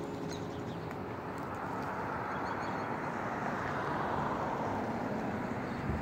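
A car passing on the street, its tyre and engine noise swelling and then fading over several seconds. The last notes of the church's steeple bells ring out in the first moment.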